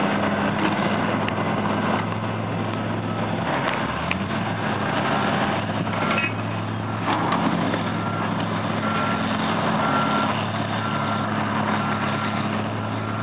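Diesel engines of hydraulic excavators running, one revving up about four seconds in, with a few clatters of broken concrete being handled. A reversing alarm beeps about once a second from about five seconds in.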